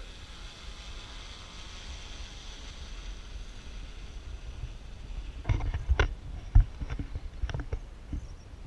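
S550 hexacopter's propellers whirring faintly overhead, fading as it climbs away. From about five and a half seconds in, irregular thumps and rumbles on the microphone are the loudest sound.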